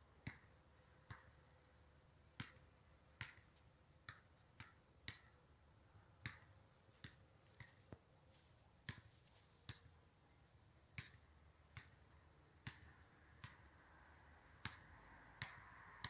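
Sharp, dry clicks at irregular intervals, about one or two a second, over a quiet background.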